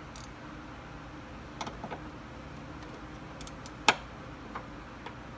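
Scattered small clicks and taps of hand tools working on a vehicle door hinge's bolts, with a few quick clicks near the middle and one sharp click about four seconds in.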